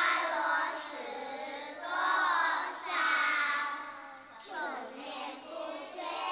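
Children singing a melody in Mandarin, in several phrases that swell and fade, with wavering held notes.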